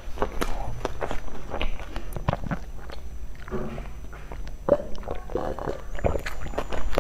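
Close-miked mouth sounds of chewing a soft meat-floss and seaweed bun, a stream of small wet clicks. About halfway through, a few swallowing gulps as a drink is taken from a bottle.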